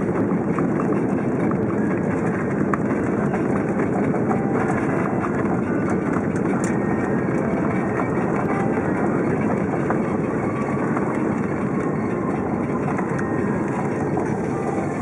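Cabin roar of an Airbus A330-300 rolling out on the runway just after touchdown, spoilers raised: a steady rush of engine and wheel noise that eases slightly as the airliner slows.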